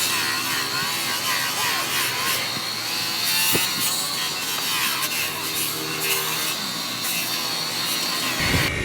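Steady abrasive rasping as a foggy plastic headlight lens is sanded.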